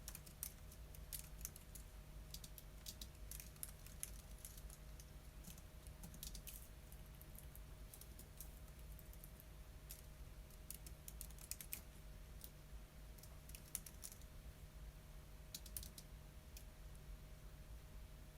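Faint typing on a computer keyboard: irregular runs of quick key clicks broken by short pauses, over a low steady hum.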